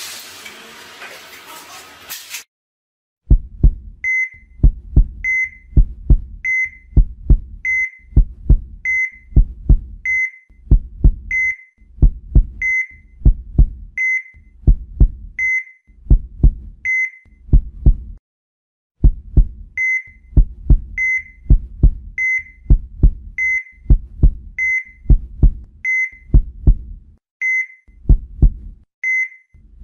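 Heartbeat sound effect: steady low double thumps, about one and a half a second, each with a short high beep like a heart monitor. It starts about three seconds in after a moment of room noise and pauses briefly around the middle.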